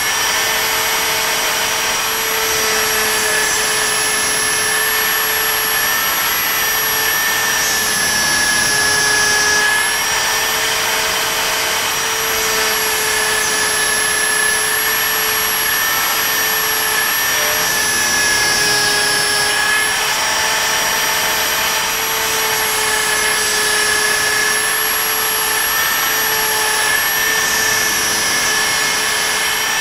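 DeWalt router on a Bob's E3 CNC machine running at speed, its quarter-inch down-cut spiral bit cutting purpleheart hardwood: a steady high whine over constant cutting noise, the pitch wavering slightly now and then.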